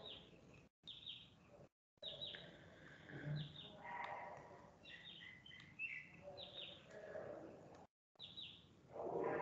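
Faint birds chirping, short falling calls repeated every second or so, with the sound dropping out completely a few times.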